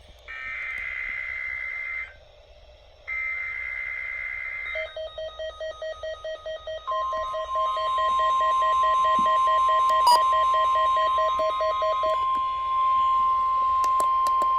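NOAA weather radio Required Weekly Test heard through radio receivers. It opens with two bursts of high, warbling SAME digital header data, and then a receiver's alert beeps at about four beeps a second. About halfway through, the steady 1050 Hz warning alarm tone comes in and holds.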